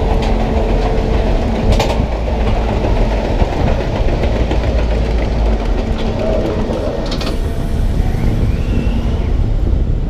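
Intamin ZacSpin roller coaster car climbing the lift: a steady mechanical rumble with a low hum, and a few sharp clicks.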